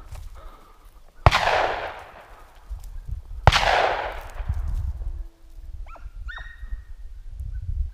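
Two shotgun shots about two seconds apart, each followed by a long echo, then a hunting dog barking a couple of times.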